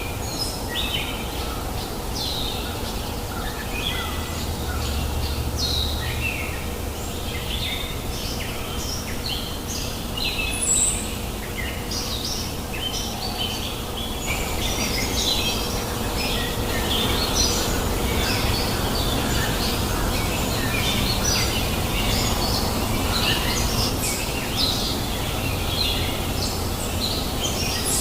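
Many birds chirping and calling in quick, short phrases, close together and overlapping, over the steady rush of a flowing river.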